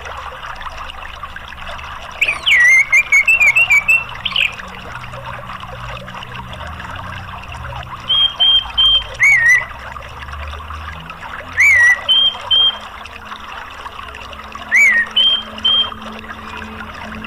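Orange-headed thrush calling over a steady rush of running water. A fast run of short chirping notes comes about two seconds in, then small groups of two or three short whistled notes, some sweeping down, every few seconds.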